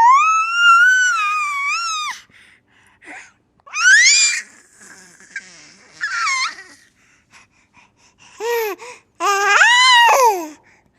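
A baby's high-pitched squeals and shrieks: one long squeal of about two seconds, shorter rising shrieks about four and six seconds in, and two more squeals near the end.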